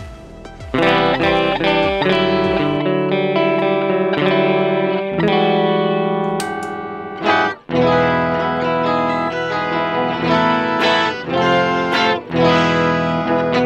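Electric guitar playing a run of notes and then chords through an Electro-Harmonix Micro POG polyphonic octave pedal, with the octave effect switched in. It has a short break about halfway. A short electronic intro sting with falling sweeps ends under a second in.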